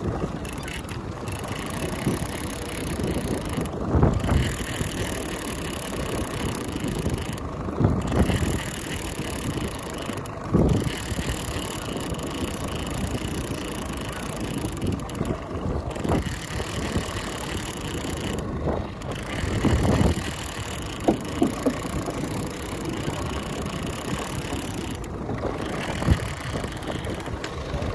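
Wind gusting on the microphone aboard a small fishing boat, in several low buffets over a steady faint hum.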